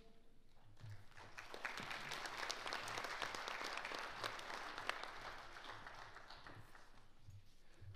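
Audience applauding, picking up about a second in and dying away over the last couple of seconds.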